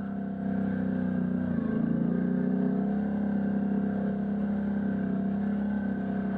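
Can-Am Outlander ATV engine running steadily under way on a trail, its pitch dipping briefly about a second and a half in as the throttle eases, then coming back up.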